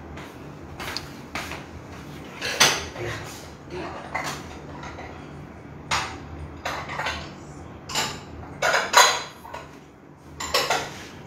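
Dishes and kitchenware clinking and knocking as they are handled: a dozen or so irregular clatters, some ringing briefly, loudest about nine seconds in.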